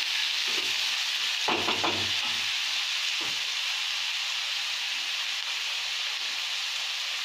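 Chopped onions sizzling steadily in hot oil in a frying pan, being browned to a light golden colour.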